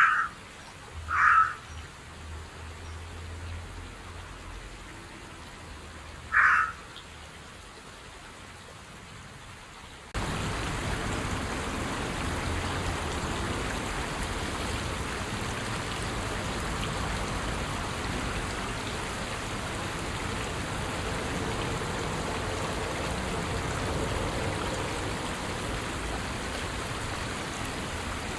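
Carrion crow cawing three times in the first seven seconds. About ten seconds in, a steady rushing of running water starts abruptly and carries on.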